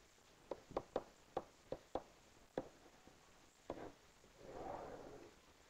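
Faint taps and clicks of a pen striking an interactive whiteboard while numbers and letters are written, about eight sharp taps over the first few seconds. A soft rubbing sound follows about four and a half seconds in as the pen is dragged along the board.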